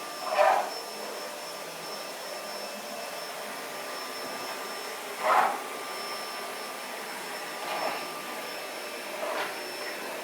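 Household vacuum cleaner running steadily with a high whine, with a few brief louder bursts, about half a second in and again around five seconds in.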